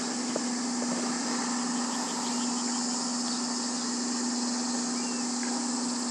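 A steady, unchanging low hum under a constant high hiss, with one or two faint clicks.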